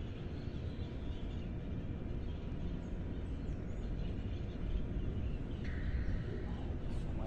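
Outdoor background noise by a pond: a steady low rumble with faint bird calls over it.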